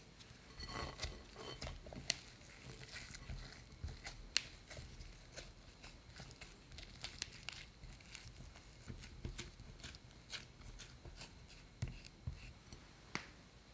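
Silicone spatula working thick, sticky churro dough in a glass bowl: soft, irregular squelching and scraping, with small ticks of the spatula against the glass.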